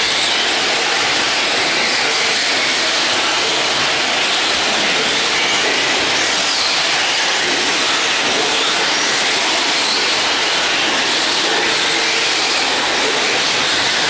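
Several radio-controlled racing trucks running on a dirt track: a steady, dense hissing whir of motors and tyres with no breaks.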